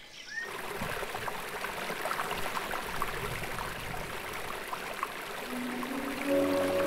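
A thin stream of water pours from a metal spout pipe and splashes onto the rock below: a steady trickling splash that starts suddenly about half a second in.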